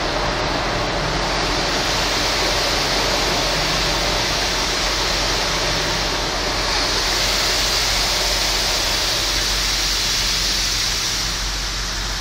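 Automatic car wash spraying water over the car, heard from inside the cabin: a steady rushing hiss of water on the windshield and body that swells about a second in and again around seven seconds in.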